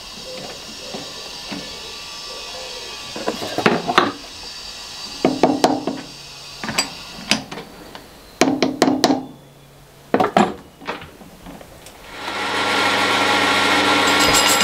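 Metal knocks and clicks as a metal lathe's three-jaw chuck is tightened with a chuck key around a stainless steel disk, with a few short whirrs. About twelve seconds in, the lathe starts and runs steadily, spinning the chuck.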